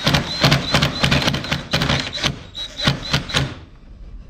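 Cordless impact wrench working a nut in a rapid run of sharp knocks, about six a second, which stops after three and a half seconds.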